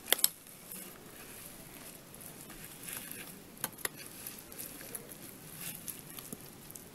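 Rubber-gloved hands crumbling soaked potting soil off a cactus's root ball: faint crumbling and patter of falling soil, with sharp clicks just after the start and again about three and a half seconds in.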